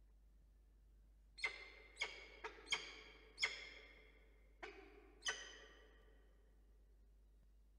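Peregrine falcon calls at the nest: about seven short, sharp, pitched calls over some four seconds, a few in quick pairs, each fading quickly.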